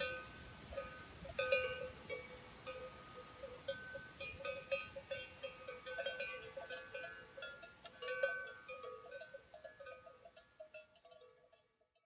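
Cowbells clanking irregularly, many uneven strikes ringing on together, fading out near the end.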